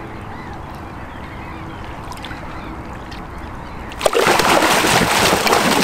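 A grass carp thrashing in a water-filled floating unhooking mat: sudden loud splashing and sloshing that breaks out about four seconds in and keeps going.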